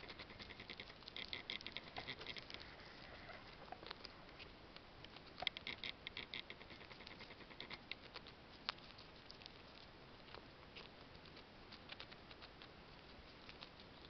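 Red squirrel gnawing a nut held in its paws: faint bursts of rapid tiny crunching clicks about a second in and again around five and a half seconds in, then only an occasional single click.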